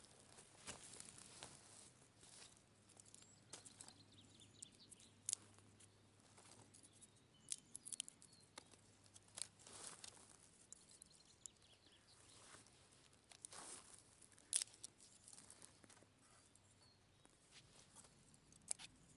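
Dry twigs being snapped and handled by hand, probably as kindling for a small wood stove: scattered faint crackles and rustles with a few sharp snaps at irregular intervals, the loudest about two-thirds of the way in.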